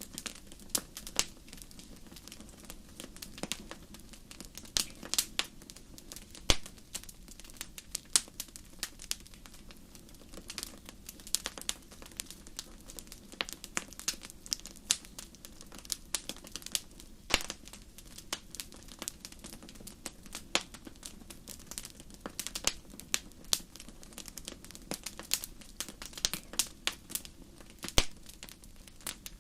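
Wood fire crackling in a fireplace: irregular sharp pops and snaps over a soft low hiss.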